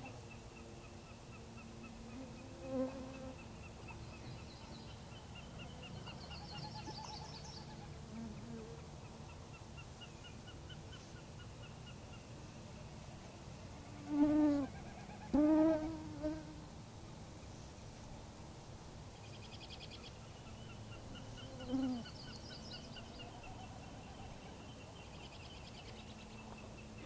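Canada goose honking: two loud honks about halfway through, with fainter single honks near the start and toward the end. A faint steady background of high trills and buzzing runs throughout.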